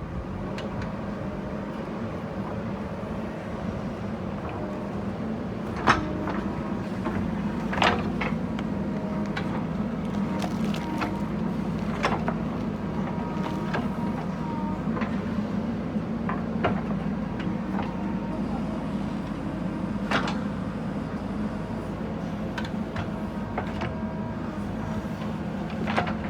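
JCB 3DX backhoe loader's diesel engine running steadily under working load, with several sharp knocks and clanks as the bucket digs; the loudest come about six and eight seconds in.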